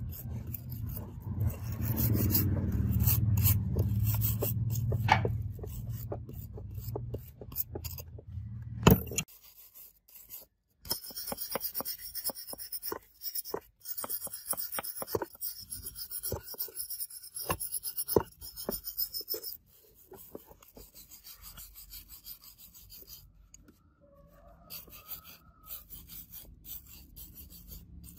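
Hand wire brush scraping rust off rusty steel car parts in repeated back-and-forth strokes. There is a sharp knock about nine seconds in. The strokes grow fainter after about twenty seconds.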